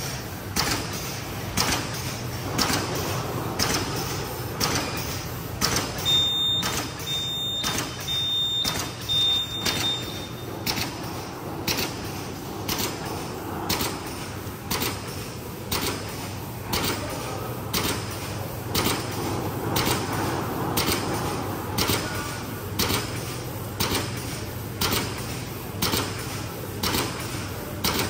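A stand-up pouch making machine running, clacking evenly about three times every two seconds over a steady low hum. A few short high beeps sound about a quarter of the way in.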